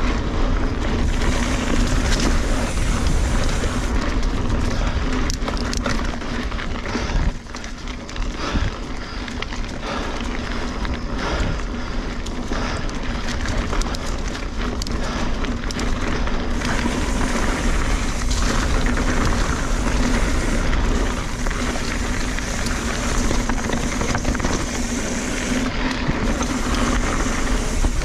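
Kona Honzo hardtail mountain bike riding down a dirt singletrack: steady wind rush over a chest-mounted action camera's microphone, with tyre noise on dirt and leaves and a constant patter of small knocks and rattles from the bike over the bumps.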